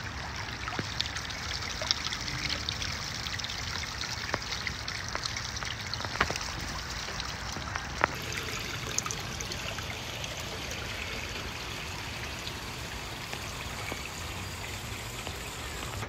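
Water welling up from the top of a boulder fountain and trickling down over the rock into a small pool: a steady trickle, with a few brief sharp ticks.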